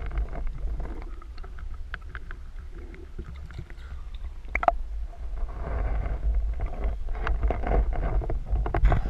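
Muffled water movement heard underwater and at the surface: a steady low rumble with scattered clicks and knocks, one sharper knock about halfway through, and louder sloshing water noise in the second half.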